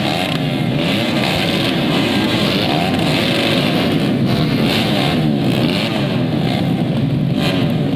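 Many motocross bikes revving at once at the start line, a dense overlapping mass of engine notes rising and falling.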